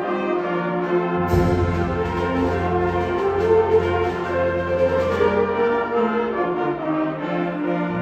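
Concert band playing held, brass-led chords. A deep bass part comes in about a second in and drops out around six seconds.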